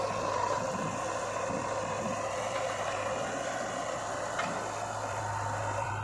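Diesel engine of the backhoe loader and tractor running steadily during loading, with a faint knock about four and a half seconds in.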